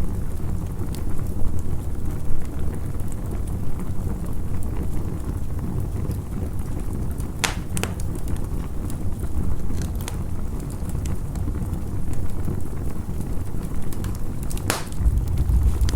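Campfire crackling over a steady low rumble, with a few sharp pops: two close together about halfway and one near the end.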